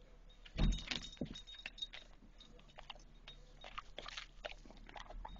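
Crinkly rustling and short clicks of a snack bag being handled as a Cheeto is taken out and fed to a bulldog, in two spells: about half a second to two seconds in, and again around four seconds in.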